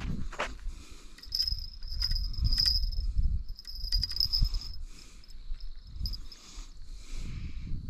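An insect trilling at a high, steady pitch for about three seconds, over a low rumble.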